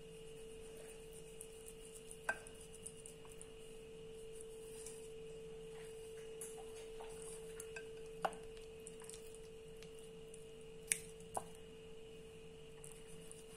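A sharp kitchen knife scoring a raw leg of lamb on a ceramic dish, the blade giving a few sharp clicks against the dish several seconds apart, over a steady faint hum.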